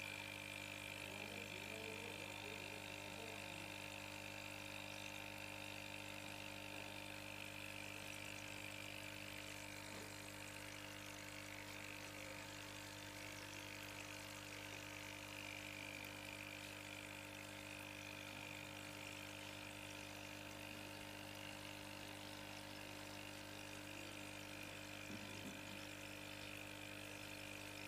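Aquarium pump running with a faint, steady hum made of several fixed tones, with water moving in the tank.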